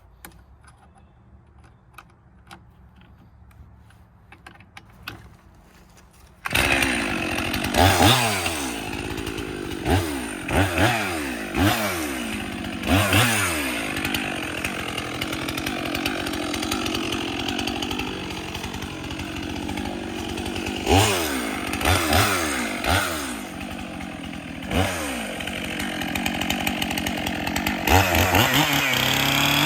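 A Stihl chainsaw starts suddenly about six seconds in after a few quiet handling clicks, then runs, revved up and down repeatedly with a stretch held at high speed.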